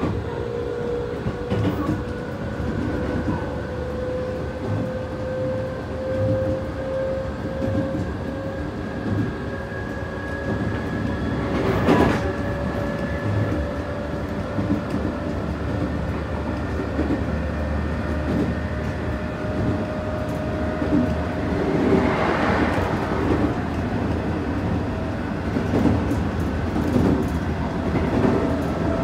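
JR West 221 series electric train heard from inside a motor car while running: the traction motors' whine rises slowly in pitch as the train gathers speed, over a steady rumble and clatter of the wheels on the rails. A sharp rattle comes about twelve seconds in and a louder burst of rail noise around twenty-two seconds.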